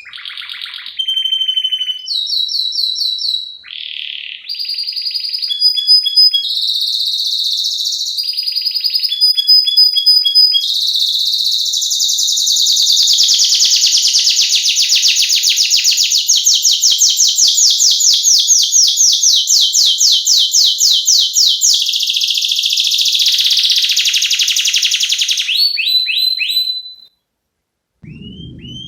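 Domestic canary singing a long, varied song of short, high phrases, each a rapid run of repeated notes. In the middle it holds one long, fast trill (a roll) for about fifteen seconds, and the song breaks off shortly before the end.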